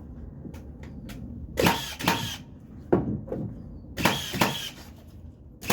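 Nails being driven into wooden jack studs: sharp, ringing bangs, mostly in quick pairs about half a second apart, with a few fainter knocks and light ticks of the lumber being handled between them.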